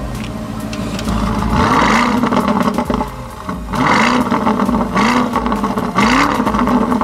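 Lamborghini Urus's twin-turbo V8 revved in about four short blips through an aftermarket Quicksilver exhaust, each rising in pitch and dropping back to idle. The exhaust valves are switched from closed to open for the later blips.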